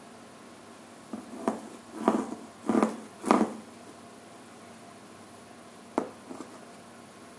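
A cardboard box scraping and rustling in four short bursts in quick succession as a cat shifts inside it and a wand toy brushes it. About six seconds in comes one sharp tap on the cardboard, with a lighter one just after.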